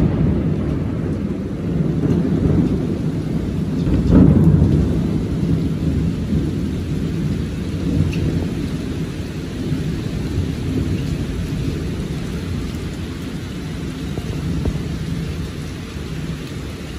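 Thunder rumbling through heavy rain, swelling to a loud peak about four seconds in, then a long low rumble that slowly dies away.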